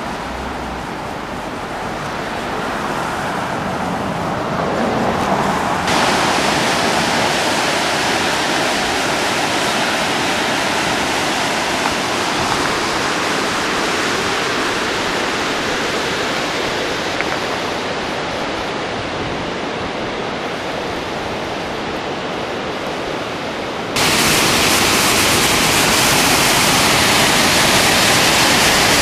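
Steady rushing noise that changes abruptly twice. Near the end it jumps to the louder, hissier rush of a waterfall pouring down a rocky gorge.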